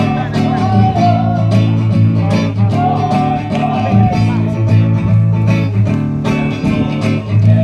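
A mixed choir singing a Western pop song over a strummed guitar accompaniment with a steady beat.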